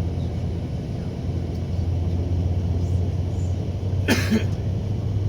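Steady low vehicle rumble, with one brief cough about four seconds in.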